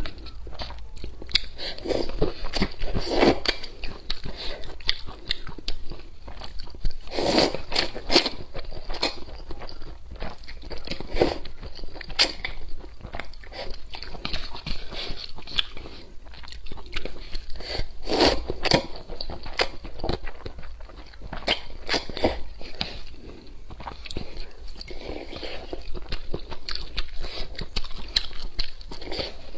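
Close-miked eating sounds: slurping and chewing of sweet potato noodles in hot and sour broth, wet mouth clicks and smacks coming in irregular bursts, a few louder slurps scattered through.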